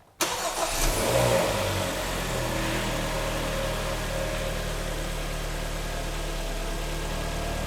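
Kia Sportage 3's rebuilt 2.0 G4KD four-cylinder petrol engine catching on its first start after the overhaul. It flares up for the first second or two, while oil is still reaching the timing chain, then settles into a steady idle.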